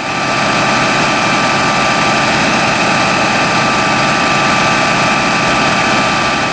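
Fire engine's diesel engine running steadily with a constant whine on top, driving the pump that feeds the hoses laid out from the truck. The sound fades in at the start and fades out at the end.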